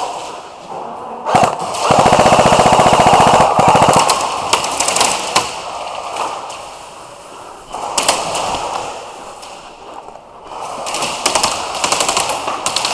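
Airsoft electric rifle (AEG) firing on full auto, with a rapid rattle of shots. The loudest burst starts about two seconds in and lasts about two seconds. Scattered single shots follow, then another rapid burst near the end.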